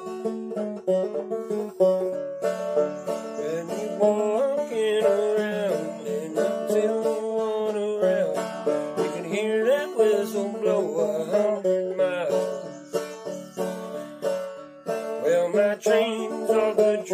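Banjo played in an old-time style, with a man singing along from about two seconds in.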